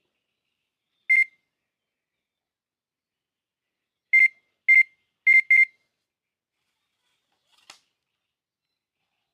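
Electronic fishing bite alarm beeping: a single beep, then four quick beeps about three seconds later, the sign of a zander taking the bait and pulling line. A faint click follows near the end.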